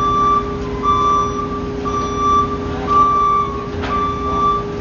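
A vehicle's reverse warning alarm beeping about once a second, over the steady hum of its engine as it backs up.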